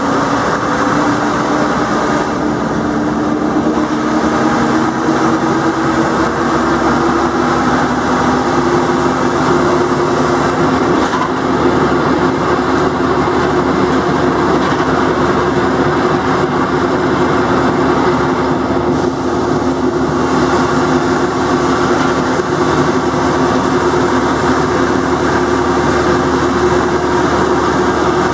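Jelcz 120MM/2 city bus heard from inside the passenger cabin, its engine and transmission running as it drives. A whine rises in pitch over the first eight seconds or so as the bus gathers speed, then holds steady over the constant drivetrain rumble.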